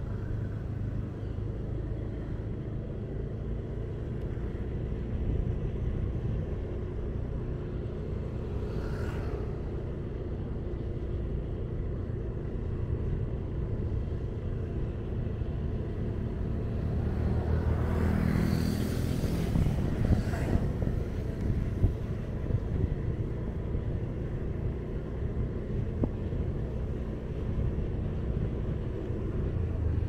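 Steady low rumble of a ride through city traffic, with a louder vehicle swelling and fading past about two-thirds of the way through.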